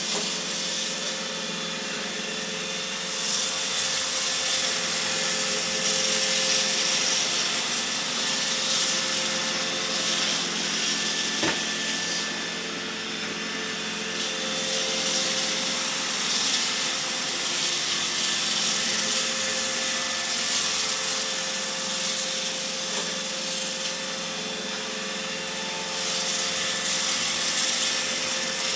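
iRobot Roomba j7 robot vacuum running as it cleans: a steady hum of its motor and brushes with a hiss above it, swelling and easing in level every few seconds. A single short click about eleven seconds in.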